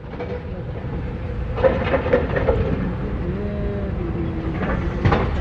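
Mini excavator's Yanmar diesel engine running, a steady low rumble that builds over the first second or so.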